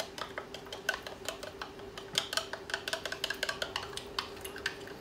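A spoon stirring cornflour and water in a small cup, clicking and scraping against the sides in quick, irregular ticks as the slurry is mixed until the flour dissolves. A faint steady hum runs underneath.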